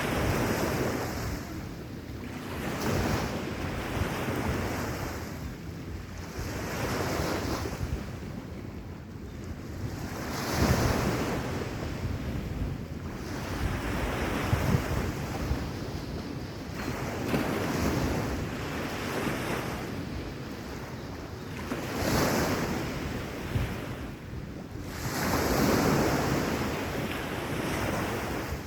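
Sea waves washing onto a beach, swelling and fading every few seconds, with wind buffeting the microphone.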